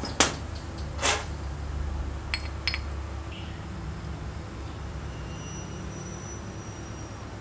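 Parts of a dismantled Hitachi electric screwdriver drill handled and set down on the workbench: a sharp knock just after the start, another about a second in, then two light metallic clinks, over a steady low hum.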